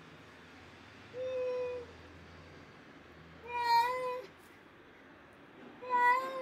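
A cat meowing three times, each meow about half a second long and held at a steady pitch that lifts slightly at the end. The second and third meows are louder than the first.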